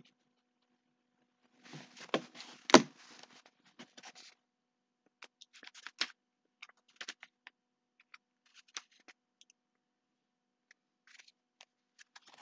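Faint scattered clicks and scratchy rustling over a video-call microphone, with one sharp click a little under three seconds in and sparser clicks after it.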